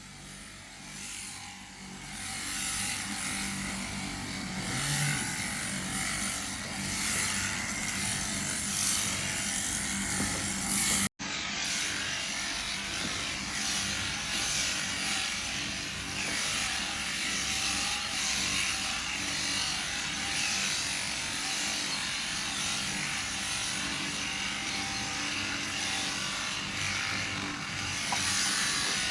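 Electric sheep-shearing handpiece running steadily as it clips the fleece off a sheep, a continuous buzzing hum. The sound cuts out for an instant about eleven seconds in.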